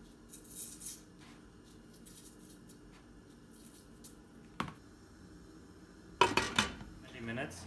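Pinches of salt sprinkled into a pot of water, then a glass lid set down on the metal pot with a sharp clatter and a short ring about six seconds in.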